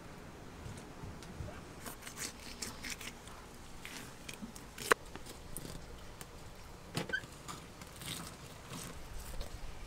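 Knife cutting into a hogfish's scaled skin and flesh for filleting: faint crunching and scraping strokes. A sharp click comes about five seconds in and a few more about seven seconds in.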